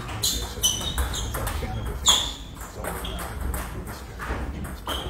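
Table tennis rally: the celluloid-type ball clicking sharply off the paddles and the table in a quick back-and-forth, the loudest hit about two seconds in.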